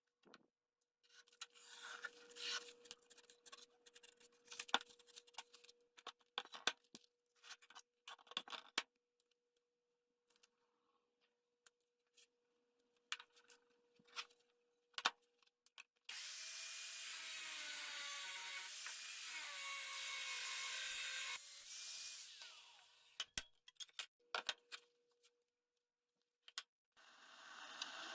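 Tools working saw-blade steel: irregular scraping strokes and clicks for several seconds, then a steady loud rasping run of about six seconds with a wavering whine in it, and scattered knocks after.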